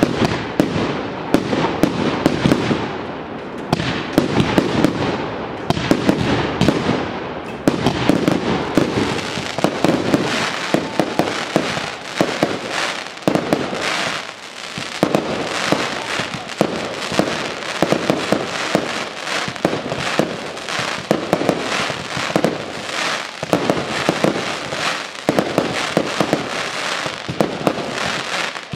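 Fireworks display: aerial shells and rising comets launching and bursting, many sharp bangs in quick succession with no pauses between them.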